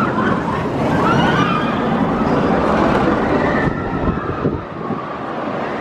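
Roller coaster train rumbling along its track with riders screaming. The rumble drops away about four and a half seconds in.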